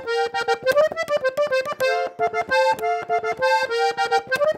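Diatonic button accordion in F playing a fast run of short, detached notes in sixths, two notes sounding together, with two quick upward slides.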